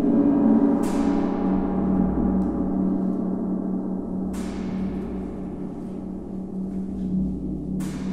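Tam-tams sounding a dense sustained drone with a steady low hum, broken by three sharp, bright hits about three and a half seconds apart, each with a shimmer that fades away.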